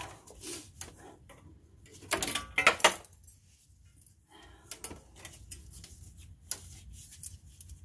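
Metal tools and brake parts being handled, clinking and knocking: a quick run of clatter about two seconds in, then single sharp clinks near five and six and a half seconds.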